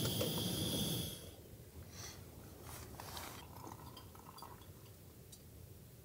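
Primus Gravity gas canister stove burner hissing steadily, then cut off sharply about a second in. After that only faint clicks and light knocks of handling.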